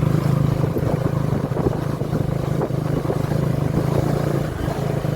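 KTM 250 Adventure's single-cylinder engine running steadily, with a constant low hum and no change in speed.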